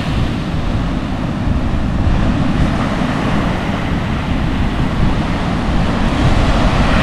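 Wind buffeting the microphone over the steady wash of rough surf breaking on the beach.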